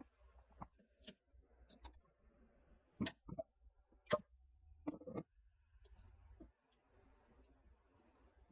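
Faint, scattered clicks and knocks of computer hardware being handled during PC assembly, with the sharpest taps about three to five seconds in.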